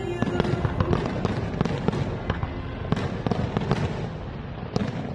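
Aerial fireworks display: a rapid, dense run of bangs and crackles from many shells bursting at once, thinning out and growing quieter toward the end, with one sharp bang near the end.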